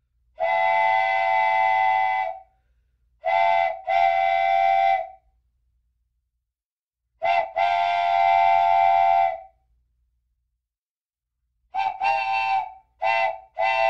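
Train horn sounding a chord in a string of blasts with dead silence between: one long blast, a short and a long, another short and a long, then four quick ones near the end.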